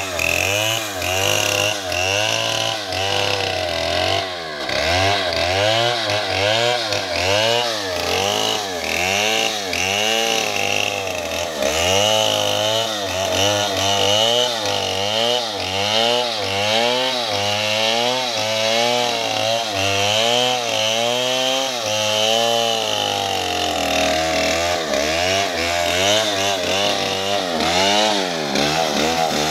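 Two-stroke chainsaw under load, ripping lengthwise through a large log. Its engine pitch rises and falls in a steady swing about once a second as the bar is worked along the cut.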